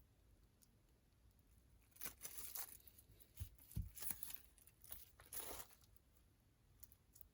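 Packaging being torn open and crinkled by hand: several rough tearing and rustling bursts over a few seconds, with a couple of soft thuds in the middle.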